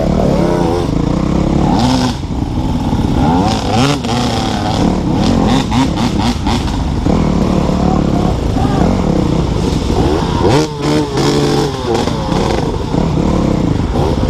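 Yamaha dirt bike engine revving up and down as it is ridden along a rough trail, its pitch rising and falling with the throttle, with occasional knocks.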